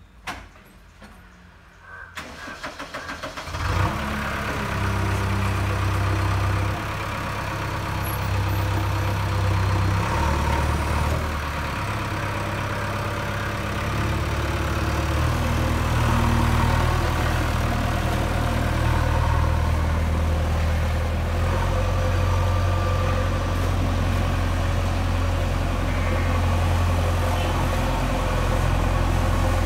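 JCB 3DX backhoe loader's diesel engine cranked by the starter about two seconds in, catching a second or so later, then running steadily, with the engine speed stepping up a few times.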